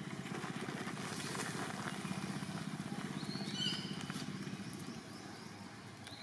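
A small engine running steadily, a rapid low throbbing. A brief high squeak comes about three and a half seconds in.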